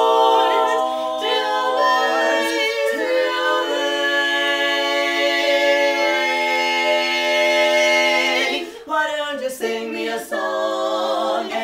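Women's barbershop quartet singing a cappella in four-part close harmony, holding long sustained chords that change a couple of times. The chord breaks off about eight and a half seconds in, and a new sung phrase starts shortly after.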